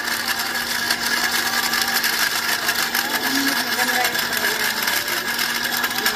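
Electric countertop blender motor running steadily, its blades chopping lemon peel in a little water: a constant whirring hum.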